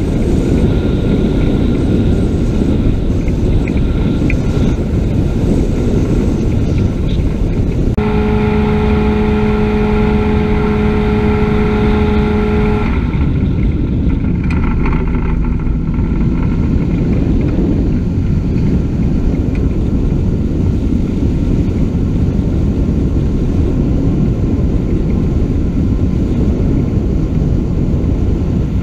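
Dragonfly ultralight aircraft in flight with its engine and propeller running, under a loud, steady rush of wind over an open-air microphone. About eight seconds in, a steady hum joins for about five seconds and stops suddenly. A lower tone follows briefly.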